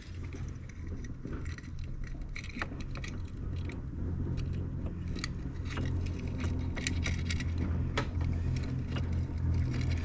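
Small metal wires jingling and clicking: a set of torch tip cleaners being sorted and used to poke through a carburetor jet. Under it runs a steady low hum that grows louder about four seconds in.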